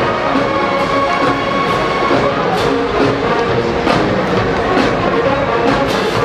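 Marching band playing: brass holding sustained chords over a steady, regular beat of drums and percussion.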